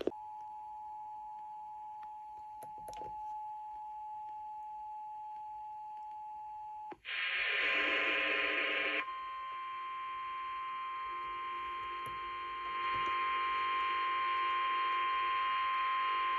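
A faint steady tone that stops about seven seconds in, then a two-second burst of noise. Then comes the NOAA Weather Radio warning alarm tone, one steady high tone held for the rest, which announces that a new weather warning follows.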